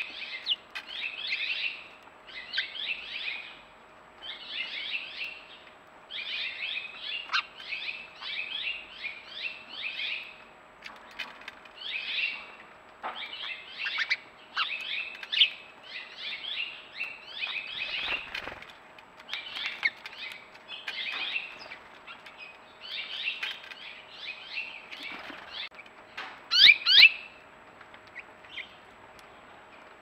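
Small songbirds chirping in quick clusters of high notes, repeating about every second, with a brief loud flutter of wings near the end as birds land on the seed feeder.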